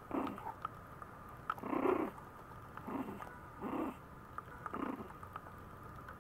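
Maltese puppy vocalising in five short cries about a second apart, asking for attention.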